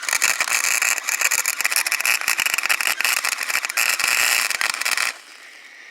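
MIG welding arc crackling and sizzling steadily as the wire feeds into the weld. It cuts off suddenly about five seconds in.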